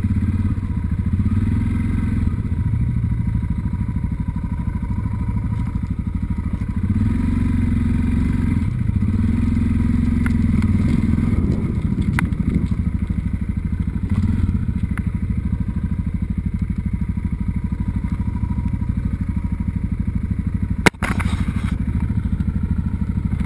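Motorcycle engine running steadily under way on a loose gravel track, heard from on board, its pitch rising and falling a few times as the throttle changes. Occasional light clicks run through it, and there is a sharp click near the end.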